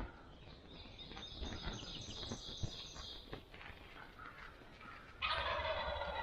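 Wild turkey tom gobbling: one loud, rattling gobble about a second long, starting about five seconds in.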